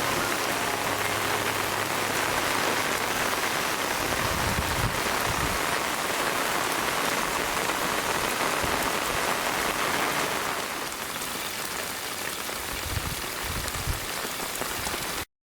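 Steady rain falling, a dense even hiss that eases slightly about ten seconds in, then cuts off suddenly near the end.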